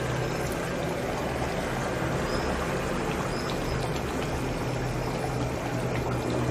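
Thick chicken curry boiling in the pan, a steady bubbling hiss.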